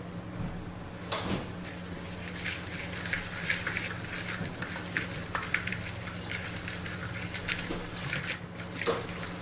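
Thick masala paste of curd, spice powders and rice flour being stirred and mixed in a bowl: a run of quick, irregular wet scraping strokes that starts about a second in and stops shortly before the end, over a steady low hum.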